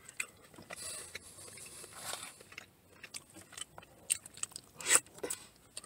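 Close-up chewing and mouth sounds of a man eating a forkful of loco moco (rice, egg and gravy), with many small clicks and one sharper click about five seconds in.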